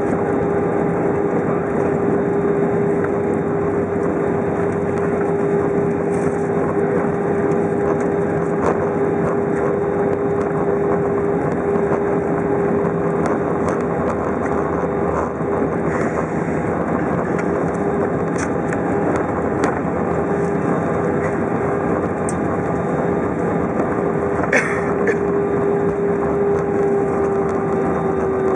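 Airbus A320 cabin noise while rolling along the ground after landing: a steady engine tone over a rumble from the undercarriage, with a few light knocks. The tone drops slightly near the end.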